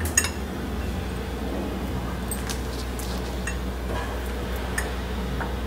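Kitchen knife cutting boiled potatoes over a glass bowl, with scattered light clicks and clinks as the blade and the dropped pieces touch the glass, over a steady low hum.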